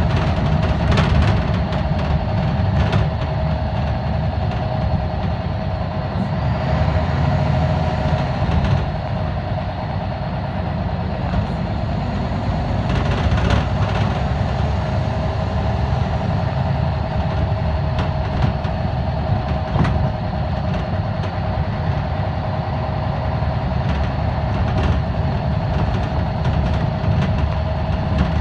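Scania L94UB Wright Solar single-deck bus heard from inside the passenger saloon while driving: a steady low diesel engine drone with a constant whining tone over it. Short rattles and knocks from the bus body come now and then.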